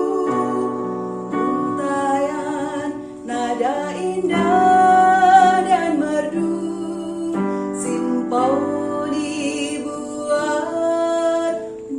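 A female voice singing a slow, sustained melody over instrumental accompaniment.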